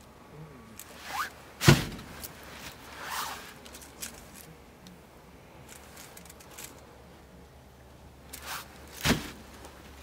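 Cut log rounds knocking against the woodpile as they are handled, with two sharp knocks, about two seconds in and about a second before the end. Light rustling and handling noise in between.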